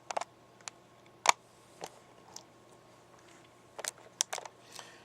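Scattered sharp clicks and light knocks of things being handled at close range, the loudest about a second in and a quick cluster of them near four seconds in.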